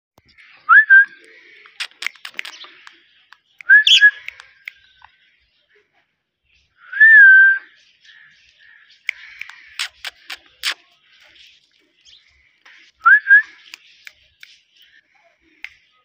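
Rose-ringed (Indian ringneck) parakeet whistling: four short rising whistles, the third, about seven seconds in, held longer, with short sharp chirps and clicks between them.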